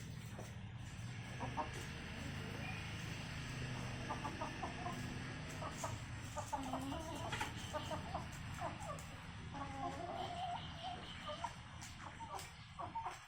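Domestic chickens clucking in short, repeated calls, over a steady low hum.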